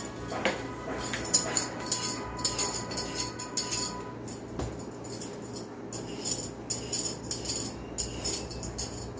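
Hand vegetable peeler scraping the skin off an oriental melon in quick repeated strokes, about two a second in short runs, with a light clink about half a second in that rings on faintly for a few seconds.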